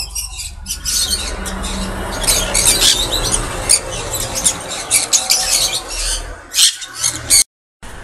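Many small cage birds chirping and chattering, short high squeaky calls following one another quickly over a low steady hum; the sound cuts off abruptly near the end.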